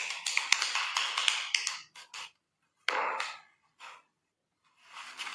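A lump of clay being wedged by hand on a canvas-covered table: a rapid run of taps and slaps that breaks off about two seconds in, then a couple of short isolated bursts.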